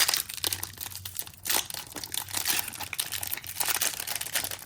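A foil Pokémon TCG booster pack wrapper crinkling and tearing as it is opened by hand, an irregular run of crackles.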